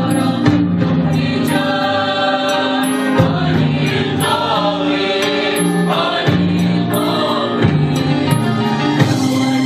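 Mixed church choir singing an Arabic Easter hymn in parts, holding long notes that change about every second, over a sustained keyboard accompaniment.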